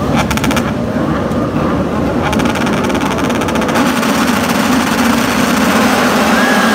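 Pack of Moto2 racing motorcycles with Triumph 765 cc three-cylinder engines, running and revving together on the starting grid. A steady engine drone that grows fuller about four seconds in.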